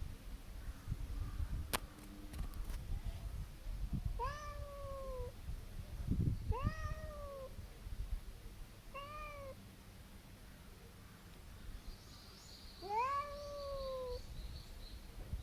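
A domestic cat giving four drawn-out, arching yowls, each rising then falling in pitch: threatening calls aimed at another cat. The last call is short and the others last about a second.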